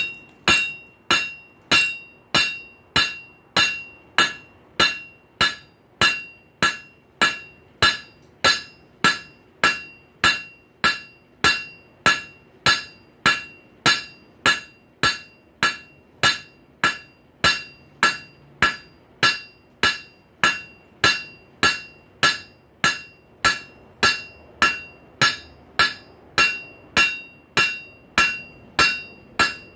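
Hand hammer striking a hot rail spike on an anvil in a steady rhythm of just under two blows a second, each blow with a bright metallic ring, as the steel is drawn out and flattened.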